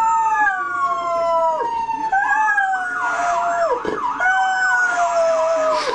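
A dog howling along with an emergency-vehicle siren. Long, slowly falling wails break off and start again about two seconds in, followed by a fast, regular warble.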